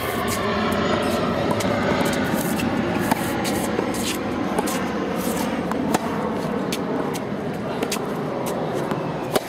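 Tennis balls struck by rackets in a baseline rally: a sharp pop roughly every three seconds, with fainter hits from the far side of the court in between, over a steady background noise.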